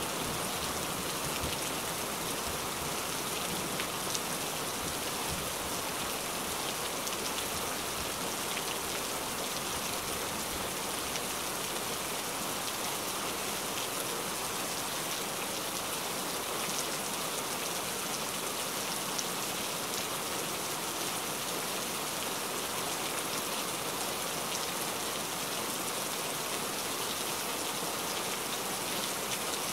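Steady rain falling: an even hiss with fine scattered patter, unchanging throughout.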